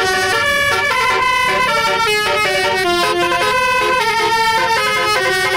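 Indonesian multi-tone bus 'telolet' air horn playing a quick tune, its notes stepping up and down in pitch without a break.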